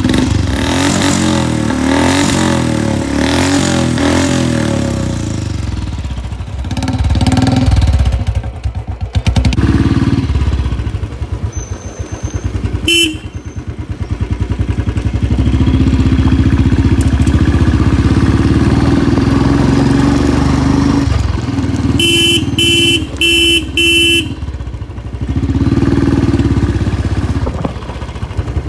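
Royal Enfield Classic 350's 346cc single-cylinder, air-cooled engine running under way, its exhaust rising and falling in pitch as the bike pulls away and is ridden. A horn beeps once about halfway through, then four short beeps come in quick succession a few seconds before the end.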